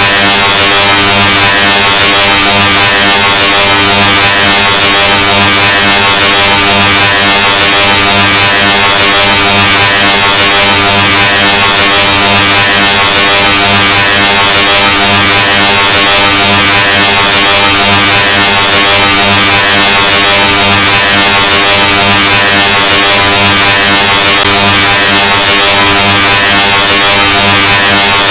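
Harsh, heavily clipped buzzing drone at full volume: one steady low pitch with a dense stack of overtones and a hiss reaching the top of the range, unchanging throughout.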